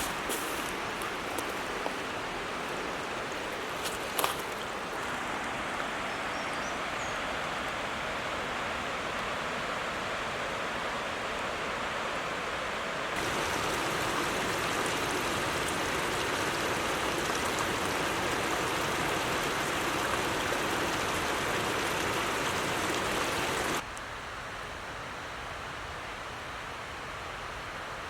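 Creek water rushing steadily, a continuous hiss of flowing water. It gets louder about thirteen seconds in and drops off suddenly near the end.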